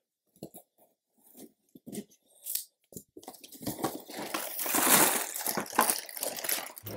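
A cardboard LEGO set box being opened. There are a few small scrapes and clicks at first, then from about three seconds in a longer rustle of cardboard and crinkling plastic parts bags as the flap is lifted.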